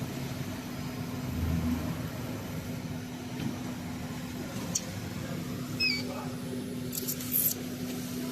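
Steady mechanical hum of a laser mirror paint-removal machine running, with a constant low tone, and a few short high hisses about seven seconds in.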